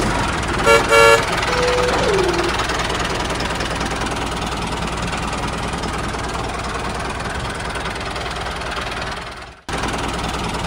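Two short vehicle-horn toots, then a steady motor running noise that breaks off for an instant near the end.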